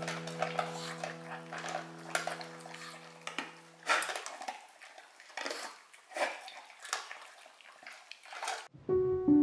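Dishes and utensils clinking and knocking in a string of short, irregular clicks, as food is handled in a kitchen.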